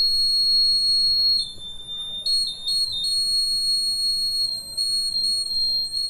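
Piezo buzzer of a laser security alarm sounding a steady, high-pitched electronic tone, set off because the laser beam to the light sensor (LDR) is blocked. A little over a second in the tone drops slightly in pitch and level, then it returns, wavers briefly and holds steady.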